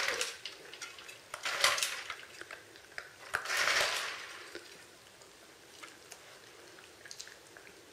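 Plastic remote-control toy car knocking and clattering on a tiled floor as a wolfdog puppy noses into it and shakes out the liver treats inside, with a louder burst of noise about three and a half seconds in. Fainter clicks follow near the end.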